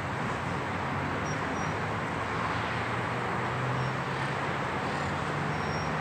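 Steady city traffic noise with the low hum of a vehicle engine coming up after about a second and a half. Several short, faint bird chirps are heard over it.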